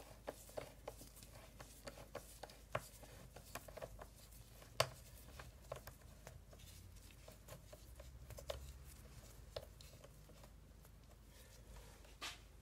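Faint, irregular clicks and taps of a socket tool and metal fastener as a screw on the air-filter housing is being undone, a few a second with a couple of louder clicks.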